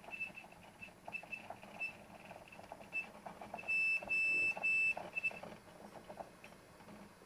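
Western Digital WD1002FAEX 1 TB hard drive squealing: a run of short, high squeaks that turn into three longer, louder squeals about halfway through, then stop. Under them is a light crunching rattle from the drive vibrating in its cradle. The drive makes this noise after running most of the day.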